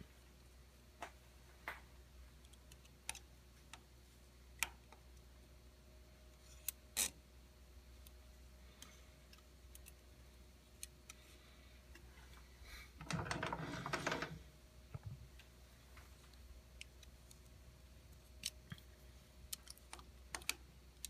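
Scattered small clicks and taps of a measuring tool being handled and set against a freshly machined aluminium workpiece to check a cut's depth, with a louder rattling scrape lasting about a second and a half about 13 s in. A faint steady hum sits underneath.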